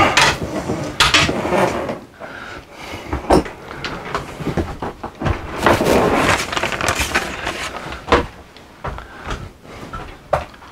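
Steel replacement cable for a BAL Accu-Slide room being pulled through under the slide, making irregular clicks, knocks and scraping, with a longer scraping stretch around the middle.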